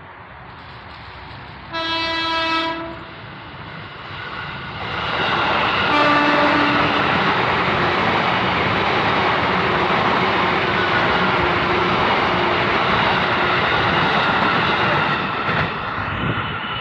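KRL electric commuter train sounding its horn twice: a short blast about two seconds in, then a second, lower-pitched blast about six seconds in. Meanwhile the train passes close by with loud, steady running noise.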